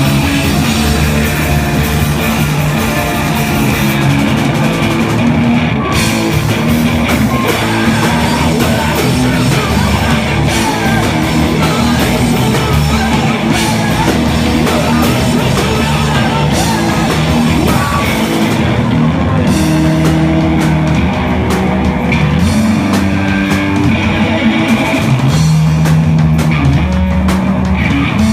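Live rock band playing loud: electric guitars, bass and drum kit.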